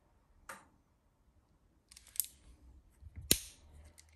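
Metal clicks from a Nagant 1887 revolver's mechanism as it is handled: a light click, a short clatter about two seconds in, and a sharp loud snap a little past three seconds in.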